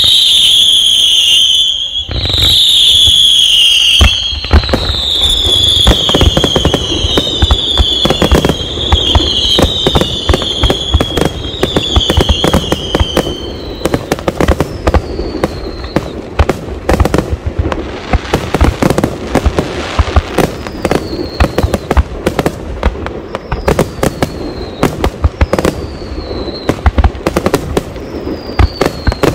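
Fireworks going off: a run of loud whistling fireworks, each a falling whistle about a second long, follows one after another for the first half. Sharp bangs and crackling run throughout. In the second half, fainter short whistles come every couple of seconds among dense crackle and bangs from the bursting shells.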